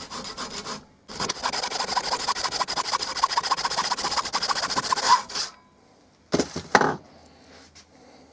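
Hacksaw cutting through a metal door-handle bolt held in a clamp, with fast, even strokes that stop suddenly about five and a half seconds in as the cut goes through. Then two short knocks.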